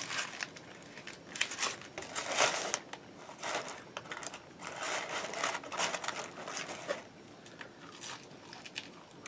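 Paper burger wrapper crinkling and close-up chewing, coming in irregular bursts that fade toward the end.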